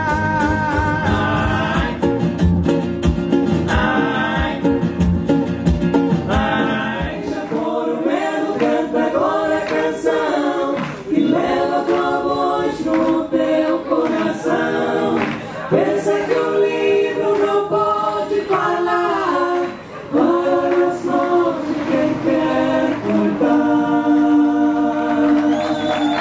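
Live band with acoustic guitar, ukulele and accordion under group vocals. About seven seconds in, the low rhythmic part drops out, leaving several voices singing together in chorus with little accompaniment.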